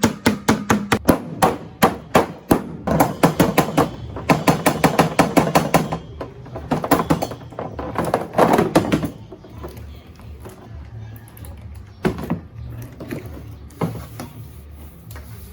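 Rapid, evenly paced hammer blows, about five a second, for roughly nine seconds, then a few scattered single knocks.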